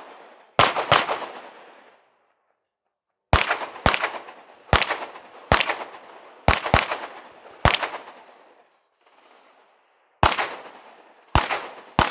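A competitor's pistol fires about a dozen shots during an IPSC course of fire, some singly and some in quick pairs, with short pauses of one to two seconds between groups. Each shot rings off with a long trailing echo.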